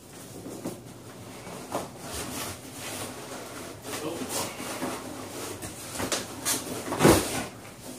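Cardboard rustling and scraping as a shipping box's flaps and inner packing are handled, with a louder thud about seven seconds in.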